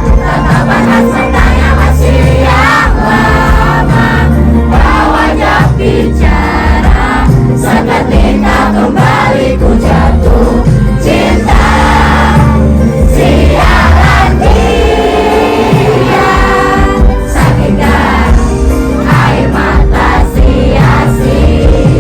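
Loud live concert music: a band playing with many voices singing along.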